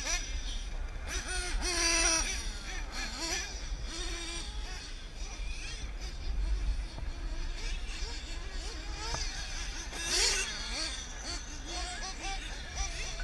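Radio-controlled off-road car driving on a dirt track, heard up close: its motor pitch rises and falls with the throttle over a constant wind rumble, with two louder rushes of noise about two seconds in and again near the end.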